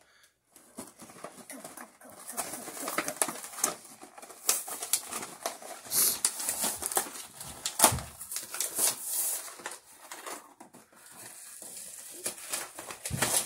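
Plastic toy packaging crinkling and crackling as it is handled and worked at, an irregular run of rustles and sharp snapping clicks that is loudest midway.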